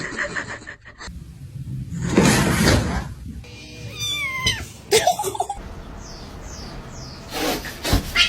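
Domestic cat meowing, with one drawn-out meow falling in pitch about four seconds in, among other short noises.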